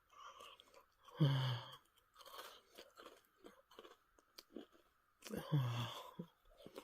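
A person chewing a crunchy cookie close to the microphone, with small crackling crunches throughout. Two short hummed "mmm" sounds of enjoyment come about a second in and again near the end.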